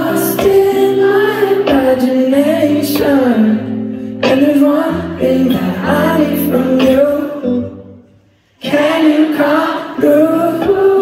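Live pop song: steady electric guitar and bass chords under many voices singing the melody together, mostly women's voices, an audience sing-along. The music fades almost to silence for a moment about eight seconds in, then comes back.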